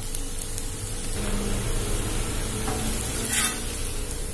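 Prawn masala dosa sizzling steadily in oil on a dosa griddle. A little over three seconds in, a metal spatula scrapes briefly as it slides under the dosa to flip it.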